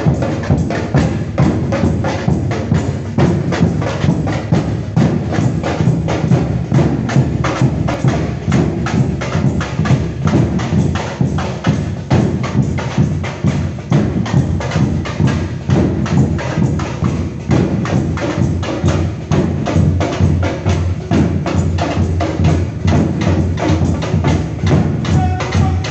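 Batucada drum group playing a steady, dense groove together: big surdo bass drums struck with soft mallets under rapid stick hits on smaller drums.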